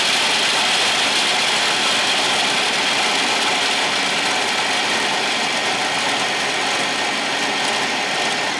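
Philips food processor running steadily at full speed, its blade chopping walnuts and Brazil nuts into coarse crumbs.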